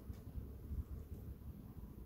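Wind buffeting an outdoor microphone: an uneven low rumble with no other clear event.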